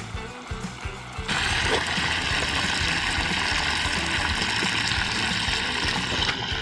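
Hot oil sizzling steadily as chicken fries, starting abruptly about a second in.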